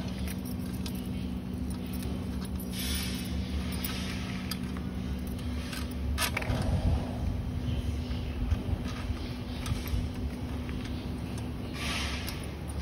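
Metal tube frame and canvas seat of a swing chair being handled and fitted together on cardboard: scattered clicks and short rustling scrapes, over a steady low hum.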